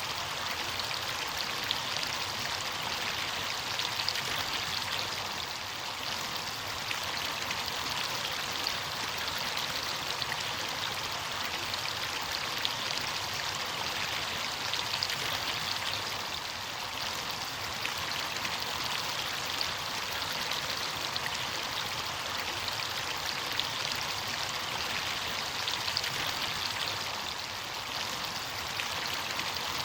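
Running water of a stream: a steady rushing with fine splashing.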